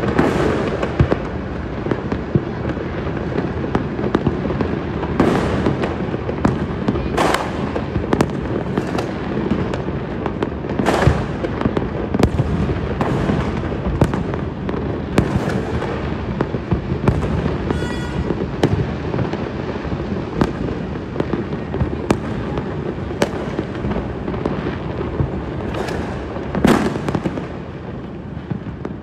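A fireworks display: many bangs and pops from bursting shells, one after another and overlapping over a steady crackling din, with especially sharp bangs about a second in, midway and near the end.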